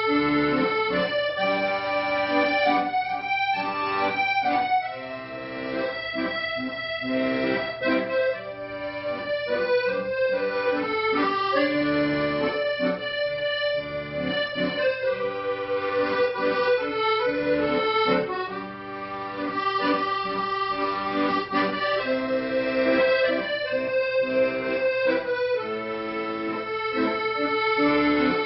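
Accordion playing a melody over held chords, each note sustained and moving stepwise from one to the next.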